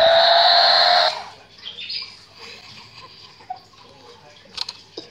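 Electronic tune from the built-in sound unit of a battery-powered toy car race track, cutting off suddenly about a second in. After it come a few faint clicks near the end.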